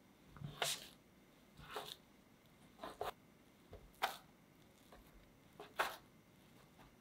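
Plastic bench scraper cutting down through soft bread dough onto a silicone mat: about five short scrapes, each ending in a light tap.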